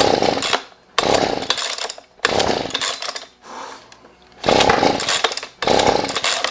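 Husqvarna 125B leaf blower's small two-stroke engine being pull-started over and over, firing in short bursts about a second apart without staying running. It is a sign of a flooded engine: the owner finds the plug saturated.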